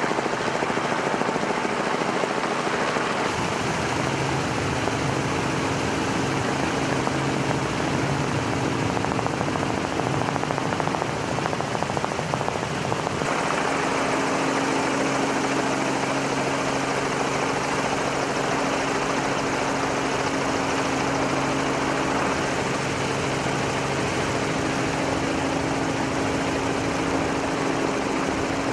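Steady engine drone at speed over a rushing noise, holding one pitch, with abrupt shifts in tone about three and a half and thirteen seconds in.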